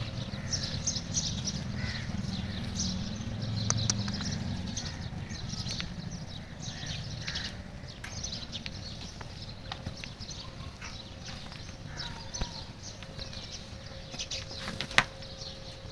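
Birds calling, with many short high chirps and crows cawing, over a low rumble that fades after the first few seconds, with a few sharp clicks.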